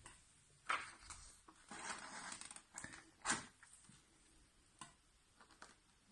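Faint, scattered clinks and knocks of a cup against a glass, with a short soft pour, as oil mixed with food colouring is tipped slowly into a glass of warm water. The loudest knock comes a little past the middle.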